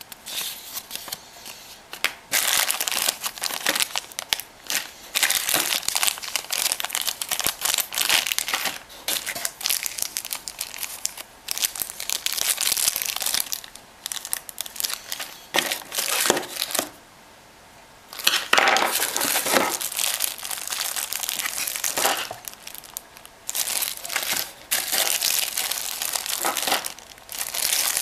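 Irregular crinkling and rustling handling noise, like something being crumpled or handled, with a pause of about a second roughly two-thirds of the way through.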